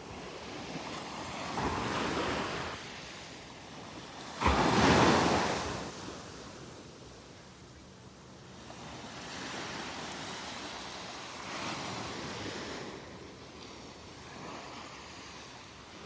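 Small waves breaking and washing up onto a sandy beach, the wash swelling and fading every few seconds. A sudden, louder rush comes about four and a half seconds in.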